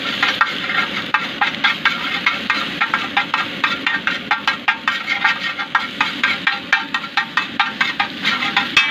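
Metal spatula striking and scraping rapidly on a large flat iron griddle (tawa) while chopping and scrambling eggs, about four sharp clacks a second over a steady low noise. The clacking stops abruptly just before the end.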